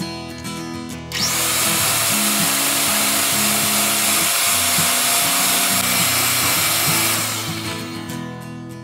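Electric hand mixer whirring as its beaters whip cream in a glass bowl, starting about a second in and fading away near the end.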